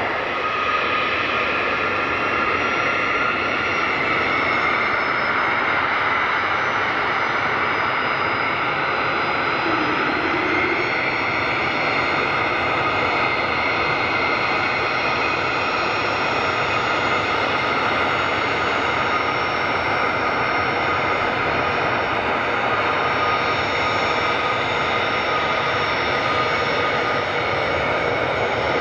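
Bombardier Challenger business jet taxiing, its rear-mounted jet engines giving a steady whine at low power, with several high whistling tones that drift slightly in pitch.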